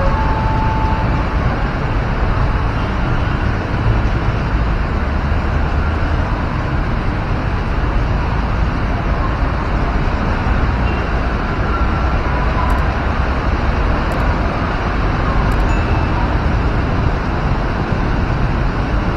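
Steady outdoor background noise with a deep rumble and a hiss above it, unchanging throughout.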